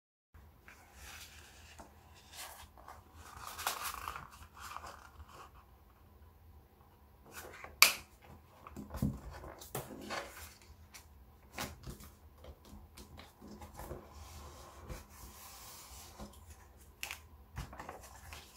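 Origami paper being folded and creased by hand on a tabletop: scattered rustles, crinkles and light taps. There is a longer rustle around four seconds in and one sharp click a little before halfway.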